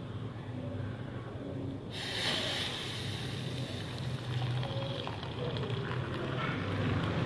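Hot milky tea poured from a steel saucepan through a mesh tea strainer into a mug: a steady splashing hiss that starts about two seconds in, over a low background hum.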